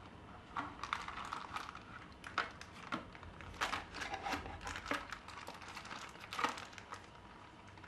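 Packaging being handled: irregular crinkling and crackling of paper and plastic wrapping as the remaining contents of a smartphone box are taken out.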